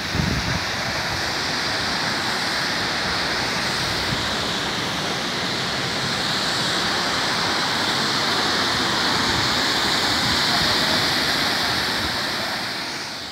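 Steady rush of an artificial waterfall, water pouring over a concrete spillway into the pool below; it fades out at the very end.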